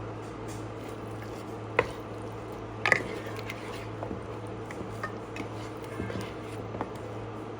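A cooking utensil knocking against a pan, with two sharp clinks about two and three seconds in and lighter taps after, over a steady low hum.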